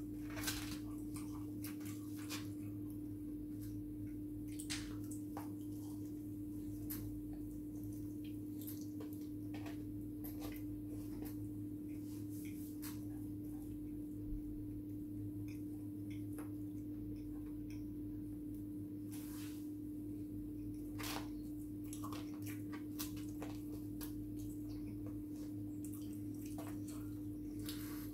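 Quiet eating sounds: scattered soft clicks and wet chewing as fries and fried chicken are picked from polystyrene takeaway trays with a wooden chip fork and eaten, over a steady low hum.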